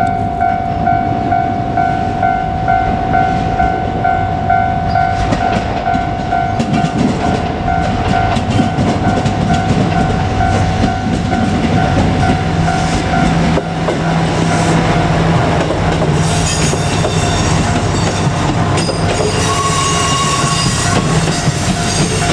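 Japanese level-crossing warning bell ringing in a steady repeating beat. About halfway through, a KiHa 200 diesel railcar passes over the crossing: its diesel engine hum and wheels clattering over the rail joints cover the bell.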